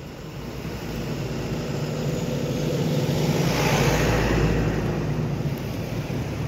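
A motor vehicle driving past on the road, its engine and tyre noise swelling to a peak about four seconds in and then fading.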